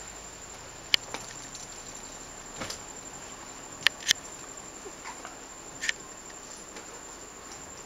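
Steady high-pitched insect drone, broken by about five sharp clicks or snaps, two of them in quick succession near the middle.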